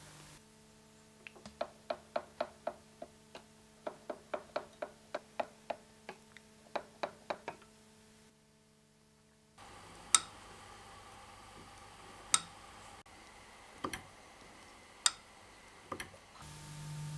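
Ornamental engine-turning lathe cutting metal: a run of small metallic clicks, each with a brief ring, several a second with short pauses between groups. After a break there are a few sharper single clicks, a second or two apart.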